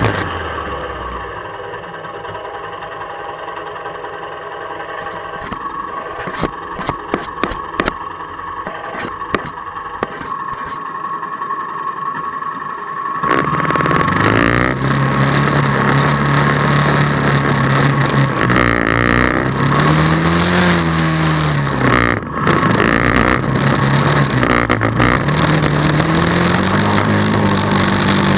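Honda Fourtrax 300 ATV's single-cylinder four-stroke engine during riding. For the first half it is low and muffled, with scattered sharp clicks of mud and stones. About halfway through it revs up and runs louder, its pitch rising and falling with the throttle.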